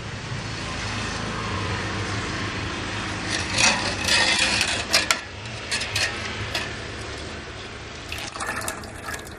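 Wet splashing and scraping as fried boondi are scooped with a perforated metal ladle and dropped into sugar syrup in a steel pot. A steady hiss runs underneath, with louder bursts of splashing and scraping a few seconds in and again near the end.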